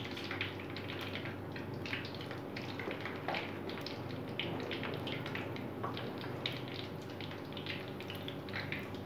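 Cornflake-crumbed chicken drumsticks deep-frying in hot oil: a steady sizzle with frequent small pops and crackles.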